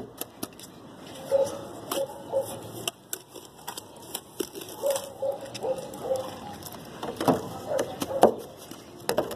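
Mason's trowel slapping and scraping wet cement mortar against a corrugated metal roof sheet and wall, packing the gap with irregular knocks and scrapes; the sharpest knocks come a little after seven and eight seconds in.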